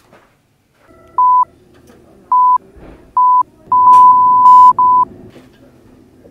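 Censor bleeps: a steady high beep tone sounding in short pieces, three single beeps about a second apart, then a longer, broken run of beeps about four seconds in, blotting out shouted words.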